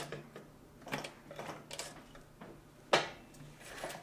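Consew 229 post-bed industrial sewing machine: a steady motor hum with a handful of irregular clicks and knocks from the needle mechanism and the work being handled. The sharpest click comes about three seconds in.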